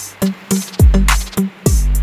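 Background electronic music with a steady beat: deep bass drum hits that drop in pitch, and sharp snare or hi-hat hits between them.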